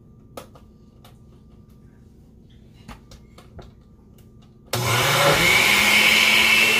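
Glass countertop blender switched on about three-quarters of the way in, starting abruptly and running at full speed with a steady pitch, blending a thin masa-and-milk mixture. Before it starts there are only a few faint clicks.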